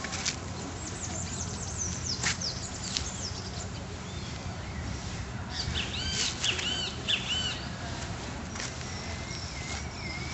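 Birds calling: a run of quick downward chirps in the first three seconds, a burst of looping arched notes about six seconds in, and a thin wavering whistle near the end, over steady low background noise.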